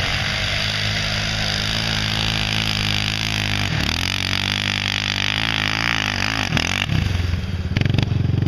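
Honda TRX700XX sport quad's single-cylinder engine working hard up a steep hill. Its pitch dips and wavers as the revs rise and fall with the load, then it settles to a steady note near the end.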